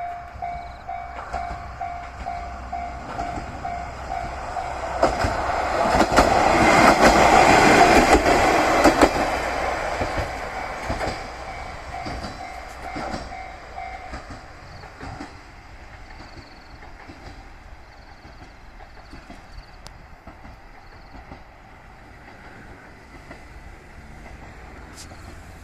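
Japanese level-crossing bell ringing a steady, evenly repeated ding while a single diesel railcar runs over the crossing. The train is loudest about six to nine seconds in, its wheels clacking over the rail joints. The bell stops about fourteen seconds in and the train fades away.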